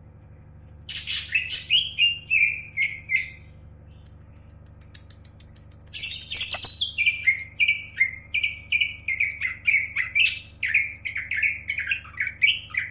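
Cucak ijo (green leafbird) singing in two bursts of quick, repeated chirping notes, each note sliding down in pitch. There is a pause of a few seconds between the bursts, and the second burst is the longer one.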